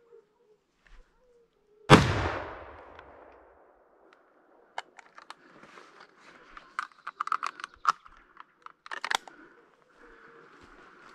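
A single gunshot about two seconds in, a hunter's shot at a wild boar, echoing and dying away over about two seconds; afterwards a run of quieter clicks and rustles.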